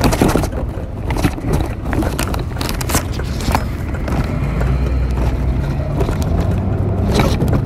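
A bicycle rolling along a concrete sidewalk, with many short rattles and knocks as it rides over the slab joints, under a steady low rumble of wind on the phone's microphone.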